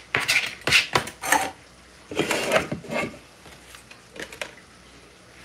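Metal pot lid and cookware knocking and clinking on the stovetop: a quick run of knocks with some scraping in the first three seconds, then a couple of faint taps about four seconds in.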